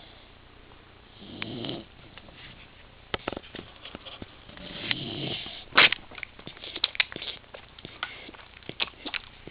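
Rottweiler snoring in its sleep, two long snoring breaths, one about a second in and one about five seconds in. Between and after them come many short sharp clicks, the loudest about six seconds in.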